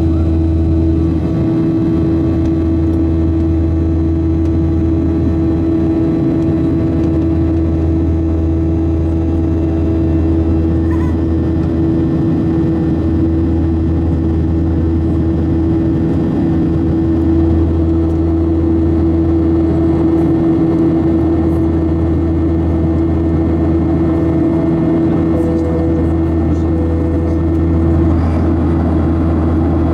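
Boeing 737-800's CFM56-7B turbofan engines heard from inside the passenger cabin: a loud, constant drone with a steady hum.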